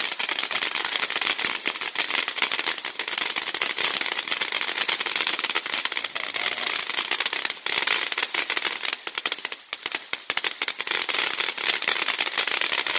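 Consumer firework crackling continuously: a rapid, unbroken run of sharp pops and crackles that thins briefly a little after nine seconds in, then picks up again.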